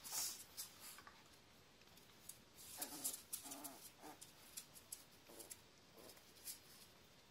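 West Highland White Terrier puppies play-fighting: a few short, quiet growls and yips, mixed with quick scuffling clicks.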